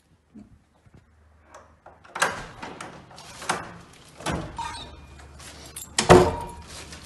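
Near silence, then a wooden door being handled: a series of knocks and thuds about a second apart starting about two seconds in, the loudest near the end with a short ring after it.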